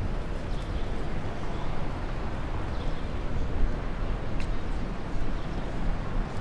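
Outdoor city street ambience: a steady, even rumble and hiss, with one sharp click about four and a half seconds in.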